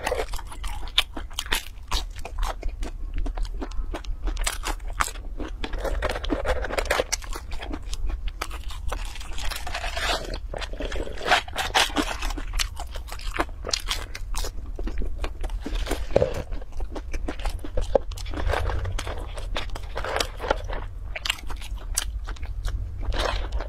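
Crispy fried fast food being bitten and chewed, a steady run of irregular crunches.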